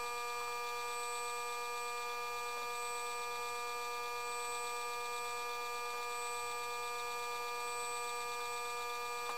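Lincoln SP-250 MIG welder's wire-feed drive motor running at a constant speed with a steady whine, pulling .023 wire off the spool and pushing it through the gun liner.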